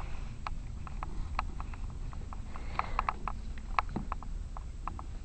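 A cat biting and chewing on artificial flowers: a run of short, crisp, irregular clicks, several a second, most dense about three seconds in.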